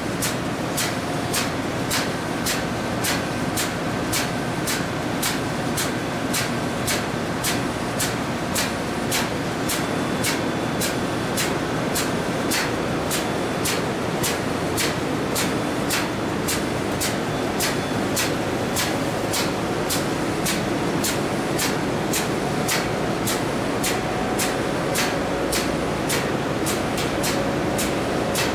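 Steady engine-room machinery noise aboard a container ship, with sharp ticks about twice a second throughout.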